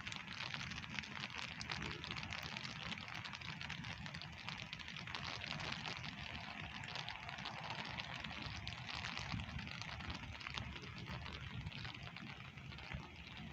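Steady pouring rain, a dense patter of countless drops, with a low rumble underneath.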